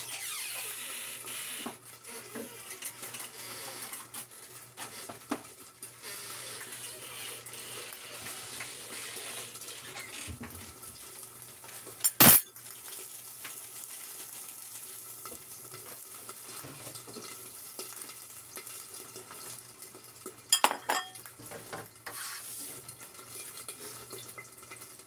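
Stir-frying in a pan: a steady sizzle with a utensil scraping and clattering against the pan and dishes. One sharp, loud clank about halfway through is the loudest sound, and a few more clatters come later.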